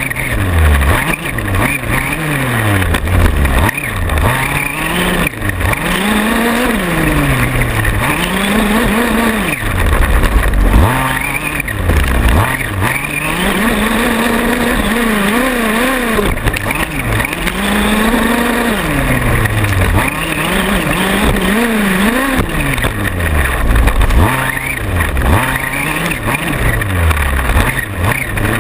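Small two-stroke gas engine of a 1/5-scale RC buggy, heard from on board, revving up and dropping off again and again as the throttle is worked, with short knocks from the chassis.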